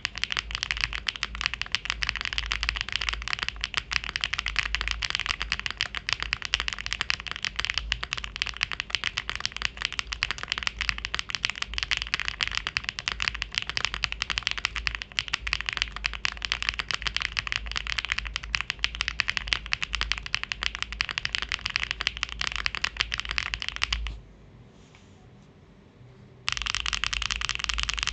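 Fast, continuous typing on a mechanical keyboard with clacky HMX V2u switches, a dense run of sharp keystroke clacks. The typing stops for about two seconds near the end, then resumes.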